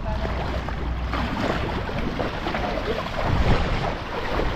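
Footsteps of someone wading through shallow water in rubber boots: irregular sloshing and splashing, loudest about three and a half seconds in, with wind rumbling on the microphone.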